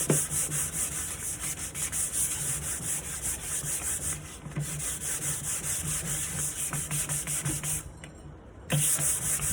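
Sandpaper scrubbing over the varnished wood of a nightstand in quick, even back-and-forth strokes, pausing briefly near the end before starting again.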